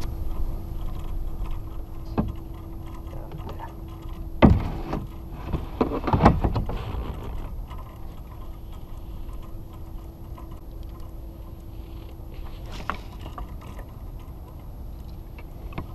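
Steady low wind-and-water noise with a faint steady hum, broken by a few sharp clicks and knocks, the loudest about four and a half and six seconds in.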